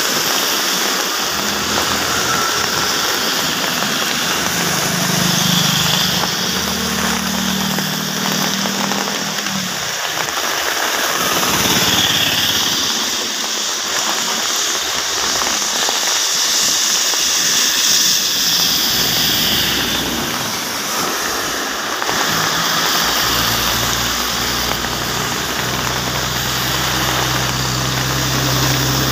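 Steady rain hissing down on a road, mixed with the swish of tyres on wet tarmac as vehicles pass. From about three-quarters of the way through, a bus engine hums steadily as the bus approaches.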